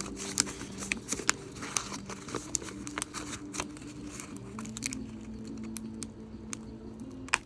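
Cardboard shipping box being cut open with a dull blade: crinkling and tearing of cardboard and packing tape, with many scattered sharp clicks.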